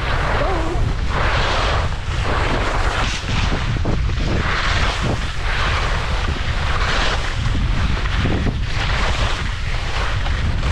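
Wind buffeting the microphone: a steady low rumble with a swell of noise every second or two.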